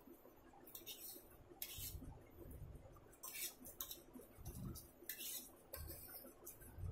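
A metal fork scraping and clinking against a ceramic plate of noodles while eating. It comes as about six short, faint scrapes, roughly a second apart.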